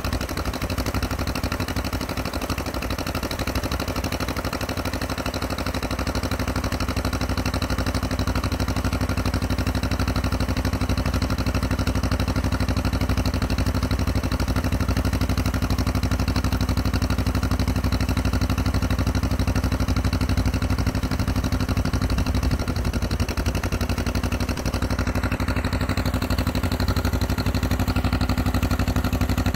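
Old farm tractor's engine running steadily at an even speed as the tractor moves through snow with a front-mounted snowblower.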